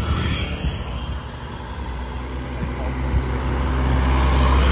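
Motor vehicle engine rumble with road noise, growing louder toward the end as a vehicle draws close.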